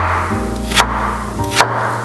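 Soft background music with steady sustained notes, over a knife chopping on a wooden cutting board: two sharp knocks a little under a second apart.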